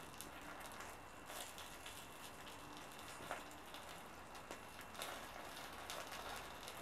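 Small wood fire burning on kindling under split logs: a quiet steady hiss with occasional crackles and pops.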